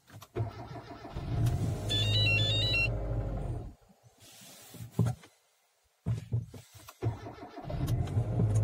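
Second-generation Kia Cerato's starter cranking in two tries, about two and a half seconds apart, with the engine not catching. Over the first try comes a quick run of stepping high electronic beeps like an 8-bit Dendy game tune. This is the car's odd behaviour after its battery has been disconnected or replaced.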